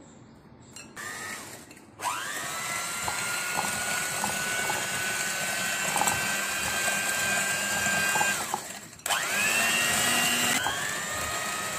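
Electric hand mixer with twin wire beaters whisking eggs and sugar in a glass bowl. It gives a short burst about a second in, then runs steadily with a whine that climbs as the motor spins up, with light ticks of the beaters against the glass. Near the end it cuts out for a moment, starts again and changes speed.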